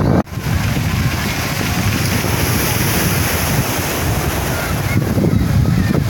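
Sea surf washing in steadily, with wind buffeting the microphone. The sound drops out briefly about a quarter second in.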